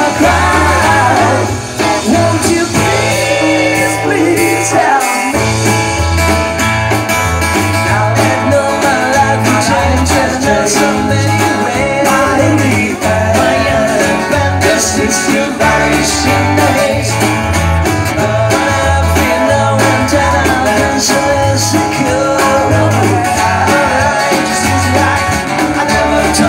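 Live rock band playing a rock-and-roll number with guitars, bass guitar and drums, the bass notes pulsing steadily under the guitars.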